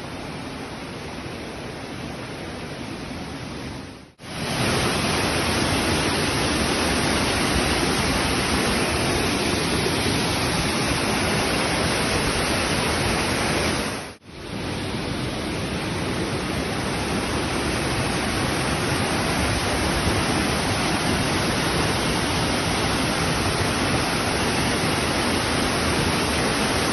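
Mountain-river waterfall: a steady, loud rush of falling water. It cuts out briefly twice, about 4 and 14 seconds in, and is louder after the first break.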